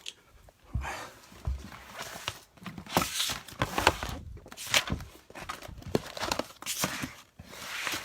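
Paper rustling and crinkling in irregular bursts as documents are handled and leafed through, with a couple of soft thumps about a second in.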